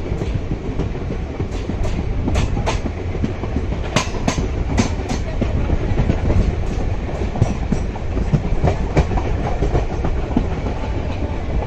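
Passenger train running along the track: a steady rumble with sharp clicks of the wheels crossing rail joints, several coming in quick pairs.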